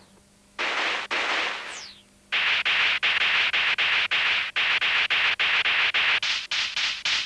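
Synthesized electronic sound effects: two bursts of hiss, a short falling whistle, then a rapid run of chopped hiss pulses, about four a second, quickening near the end.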